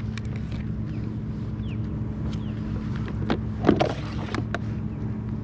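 A redfish being handled aboard a kayak: scattered clicks and knocks, with a louder splashing clatter about three and a half seconds in, over a steady low hum.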